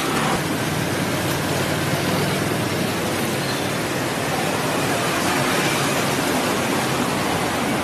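Steady city street traffic noise, an even rushing hum with no single sound standing out.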